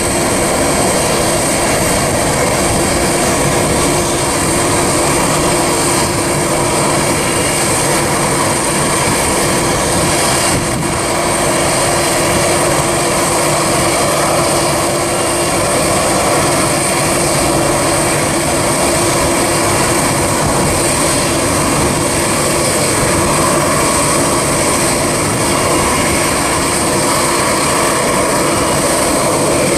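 Boeing 777F freighter's twin GE90 turbofan engines at takeoff thrust: a steady, loud jet roar with a high whine as the aircraft rolls, lifts off and climbs away.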